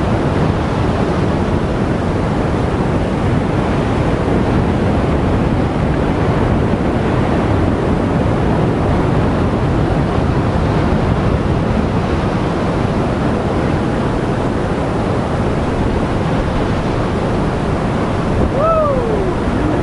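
Surf breaking and washing against the rocks, with wind buffeting the microphone. Near the end comes one short falling cry.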